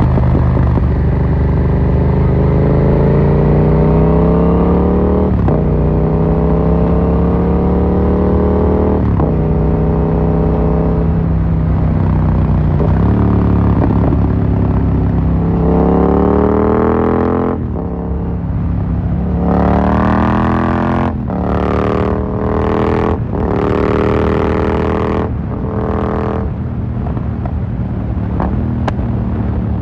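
Yamaha MT-07's 689 cc parallel-twin through an Akrapovic carbon full exhaust, accelerating hard through the gears. The pitch climbs steadily and drops sharply at each of three upshifts. After about 17 seconds it comes off the throttle and runs in several short bursts with abrupt cuts, and near the end a few sharp pops sound over a lower engine note.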